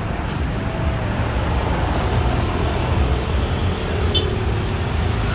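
Tour bus engine running with a steady low rumble, amid road traffic noise.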